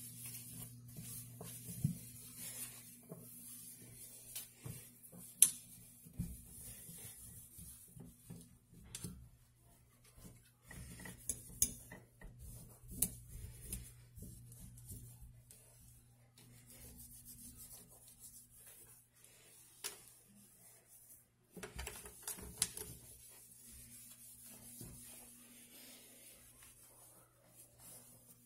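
A cloth rubbing and wiping over a stainless steel sink basin, with irregular strokes and scattered sharp clicks and taps against the metal.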